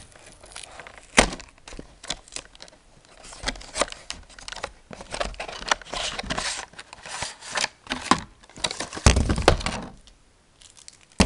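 A paperboard card-game box being torn open by hand: irregular ripping and rustling of card, with a sharp click about a second in and a heavier knock about nine seconds in.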